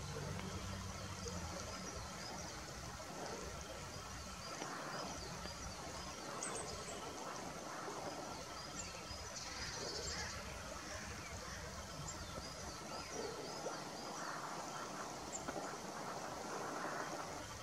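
Faint riverbank ambience: repeated short high chirping calls throughout, with soft water splashing from otters moving in the shallows.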